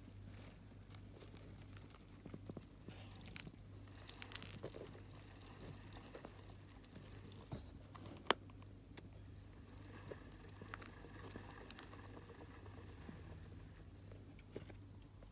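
Roborovski dwarf hamsters moving over paper bedding: faint rustling, crinkling and scratching with scattered small clicks, busiest about three to five seconds in, with one sharper click around eight seconds.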